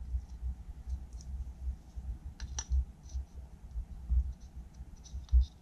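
A few light clicks and ticks from an outside micrometer being worked on a two-stroke jet ski piston's skirt during measuring, over dull low handling thumps.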